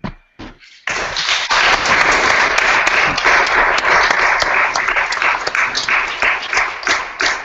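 Audience applauding. It starts about a second in and thins to scattered claps near the end.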